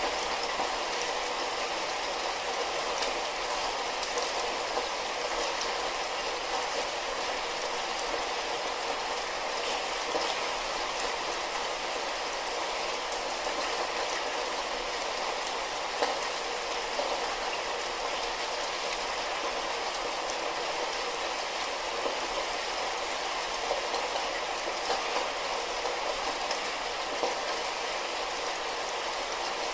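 Steady light rain, an even hiss with scattered small drop ticks.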